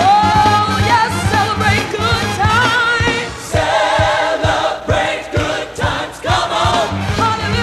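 Gospel choir singing with a band: many voices holding and bending sung notes over bass and a steady drum beat.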